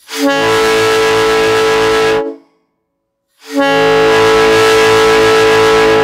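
Small-scale PVC three-chime train horn, tuned to a P3 chord and blown on compressed air at about 80 PSI, sounding a steady chord of several tones. It gives two long blasts, the first about two seconds long and the second held longer.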